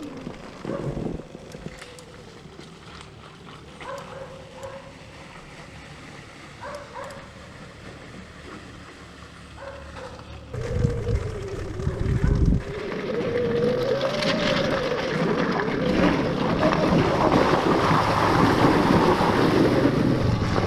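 Electric enduro motorcycle (Sur-Ron Ultra Bee): a faint steady whine with scattered clicks for about ten seconds, then the bike pulls away about halfway through, its motor whine rising and falling with speed under wind noise on the microphone.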